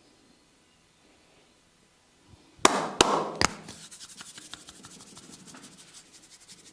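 Massage percussion: three sharp strikes in quick succession, then a fast run of lighter clicks at several per second that fade away.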